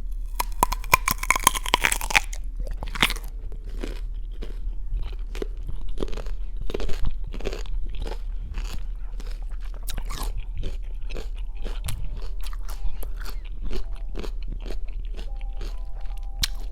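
Close-miked crisp bite into a crunchy raw fruit: a burst of crackling crunches in the first two seconds, then repeated crunchy chewing, several strokes a second.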